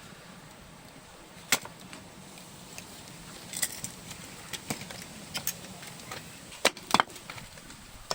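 Wood bonfire crackling: sharp pops and snaps at irregular intervals over a low hiss, with two loud snaps in quick succession about seven seconds in.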